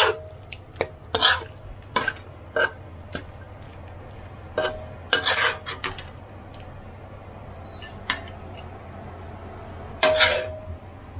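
Stir-frying in a pan: a metal spatula clanking and scraping against the pan in irregular knocks, some ringing briefly, with a cluster about five seconds in and another near the end. A low steady hum runs underneath.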